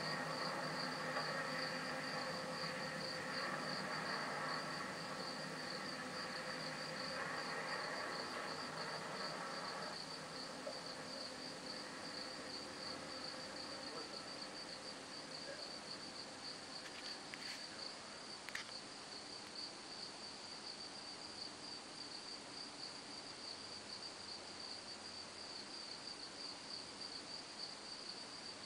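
Crickets trilling steadily in a high, pulsing chirr. Under it, the low hum of a distant freight train fades away about ten seconds in, leaving only the insects.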